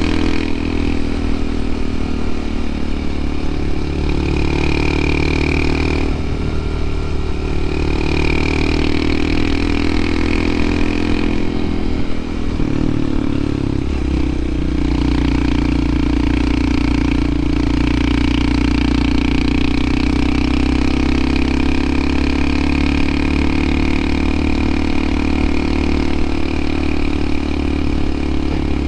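Honda CT125 Hunter Cub's air-cooled single-cylinder engine running under load while climbing a steep pass. Its steady note dips and shifts twice, around 6 and 13 seconds in.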